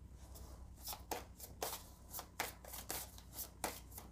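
Tarot cards being handled and shuffled: a quick, irregular run of soft card snaps and rustles, about three or four a second.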